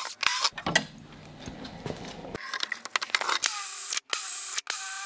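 Cordless drill boring into an aluminium plate in several short runs, its motor whine sagging in pitch as the bit bites into the metal.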